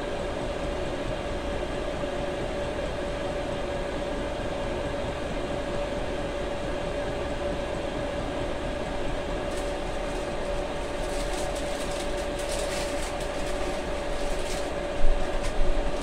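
Chinese diesel heater's fan running steadily with an even whine, sped up along with its fuel pump. From about ten seconds in, a plastic snack wrapper crinkles, with louder rustles near the end.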